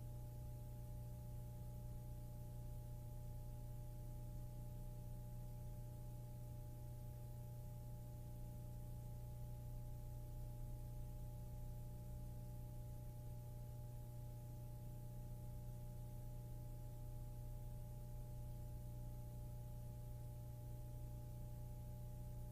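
Steady low electrical hum with a few thin constant tones above it and a faint hiss, unchanging throughout: background noise of an old tape transfer, with no event in it.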